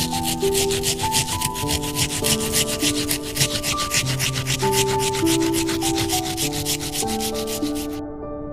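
Boiled egg being grated on a small grater: quick, even rasping strokes, about six a second, that stop abruptly near the end.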